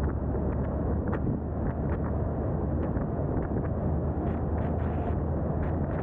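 Steady low rumble of a 2022 Subaru WRX driving at speed, heard through wind rushing over the mic of a camera pole-mounted on the car, with short scratchy gusts of wind buffeting several times.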